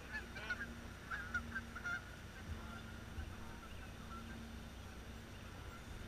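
Geese honking, several short calls in the first two seconds that then die away, over a low steady rumble.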